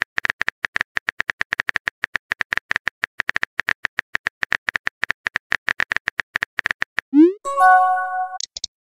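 Texting-app sound effects: a fast run of keyboard-tap clicks, about ten a second, for some seven seconds. Then a rising pop as the message is sent, a short held chime of several tones, and a quick high chirp.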